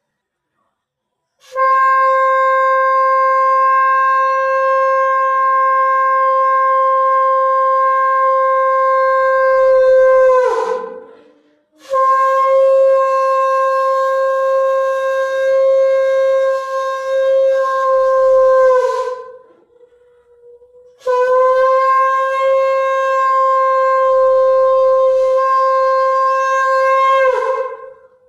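Conch shell (shankha) blown in three long, steady blasts, each ending with a short downward bend in pitch: the conch sounded at a Bengali evening puja (sandhya).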